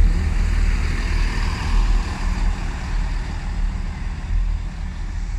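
Steady low rumble of a diesel multiple unit's engines running while the train stands at the platform, with a broad background hiss.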